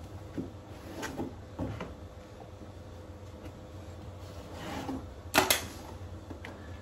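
Wallpaper being trimmed at the bottom edge with hand tools: soft scraping and rubbing with a few light clicks, and one louder sharp crackle about five and a half seconds in.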